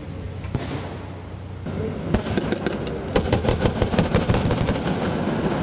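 Rapid automatic gunfire from armed river patrol boats: dense strings of sharp shots begin about two seconds in and keep going, over the steady low hum of the boats' engines.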